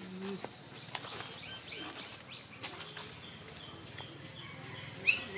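Small birds chirping, many short high chirps in quick succession, with one sharper, louder squeak about five seconds in.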